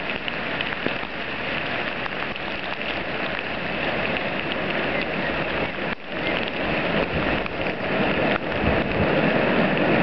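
Heavy rain falling steadily. A low rumble grows slowly louder through the later seconds as the Ffestiniog Railway gravity train of slate wagons, coasting downhill without a locomotive, approaches.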